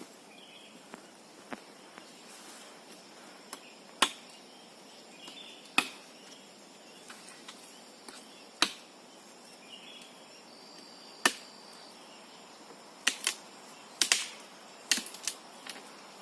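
About a dozen sharp knocks or snaps at irregular gaps, several bunched together near the end, over a faint steady high buzz of insects.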